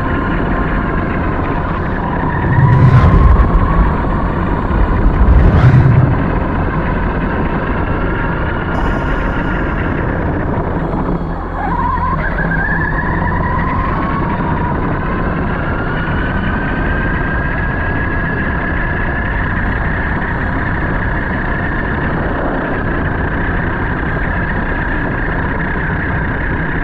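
Onboard sound of an Arrma Notorious RC truck's brushless electric motor whining, its pitch rising and falling with the throttle, over steady drivetrain and tyre noise on snow. Two loud low rumbles come about three and six seconds in.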